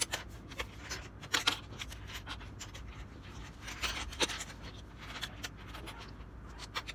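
Plastic LEGO Ninjago bricks being handled and snapped together on a wooden tabletop: a rapid, irregular series of small clicks and taps.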